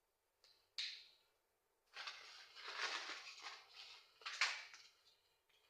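Pencil scratching on paper as diagram lines are drawn: one short stroke about a second in, then a longer run of scratching strokes from about two seconds in to nearly five.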